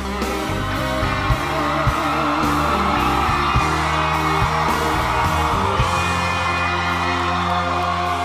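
Live band playing an instrumental passage of a pop ballad: steady bass and held chords with drum hits.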